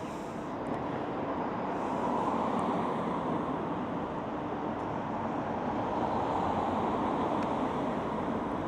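Road traffic passing, a steady rush that swells gently twice.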